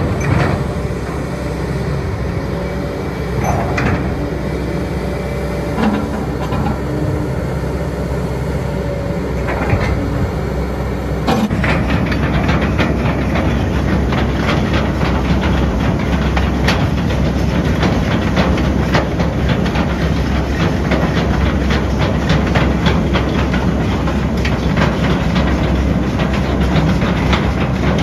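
XCMG XE160SL amphibious excavator running on its steel pontoon tracks: the diesel engine runs steadily under the clanking of the track chains, with a few separate knocks at first. About halfway through, the clanking turns into a dense, steady clatter.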